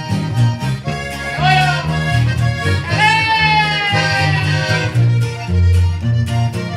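Norteño band playing live: accordion melody over a steady bass line. A bending accordion note comes about a second and a half in, and a long held note runs through the middle.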